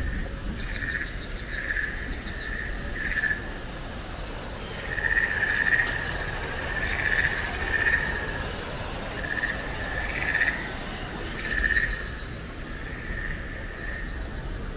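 Frogs calling in a chorus: short calls one after another, about one a second, with faint rapid high trills now and then.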